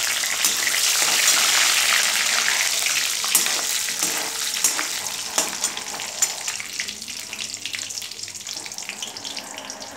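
Fresh curry leaves sizzling and crackling in hot oil with mustard seeds and cumin in a steel kadhai, the tempering for poha. The sizzle is loudest at first and slowly dies down.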